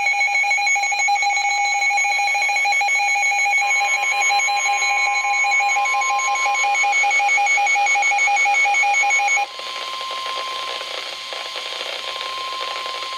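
Rapid electronic alarm beeping for about nine seconds, joined partway through by NOAA Weather Radio's steady 1050 Hz warning alarm tone. The alarm tone runs on alone over radio hiss after the beeping stops. It is the alert signal ahead of a severe thunderstorm warning broadcast.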